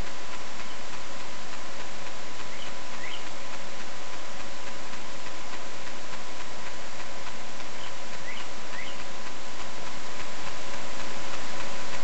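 Steady hiss with a faint, even whine underneath, like a camcorder's own recording noise. Faint short bird chirps come twice, in pairs: about three seconds in and again about eight and a half seconds in.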